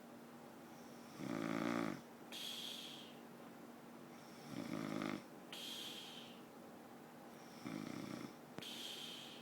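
A man snoring in his sleep: three long, low snores about three seconds apart, each followed by a short breathy hiss.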